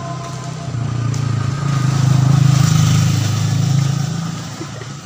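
A motorcycle engine running, growing louder over a couple of seconds and then fading away, as when it rides past.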